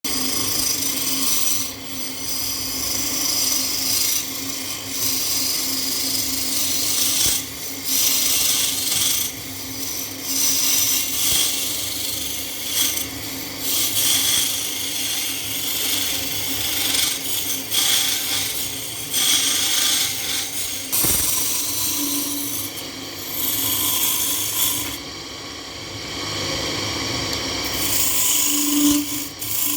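Wood lathe running with a steady motor hum while a turning tool cuts and scrapes the spinning wood, the scraping hiss coming and going in uneven strokes.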